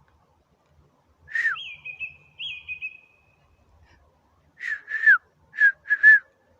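A songbird singing clear whistled notes: one note sliding down about a second in, a short warbling phrase after it, then four quick whistles near the end, most of them dropping in pitch.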